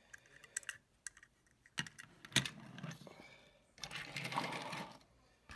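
Small clicks and taps of a diecast metal toy car being handled and set down on a wooden table, the sharpest tap about two and a half seconds in, followed by a brief rustling noise about four seconds in.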